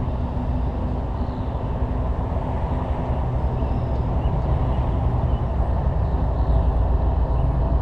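Canadian Pacific train's diesel locomotives rumbling steadily, growing slowly louder, with a few faint bird chirps above.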